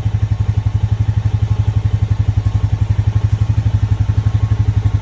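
ATV engine idling steadily, an even throb of about nine pulses a second.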